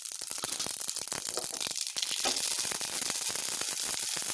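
Mustard seeds spluttering in hot coconut oil in a stainless steel kadai for a tempering: a dense crackle of sharp pops over a sizzle, growing a little louder about two seconds in.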